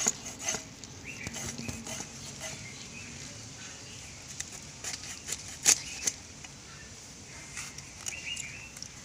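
A fish being cut by hand on an upright boti blade: scattered scraping and cracking clicks as the ash-coated fish is pressed and drawn against the blade, with the sharpest crack a little past halfway. A few short chirps sound in the background.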